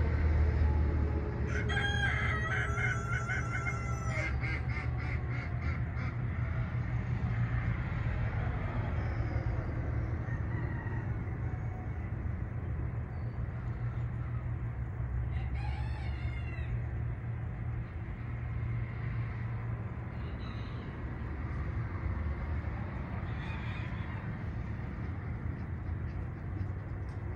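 Farmyard poultry calling over a steady low rumble: a rooster crows about two seconds in, and shorter bird calls follow around the middle and near the end.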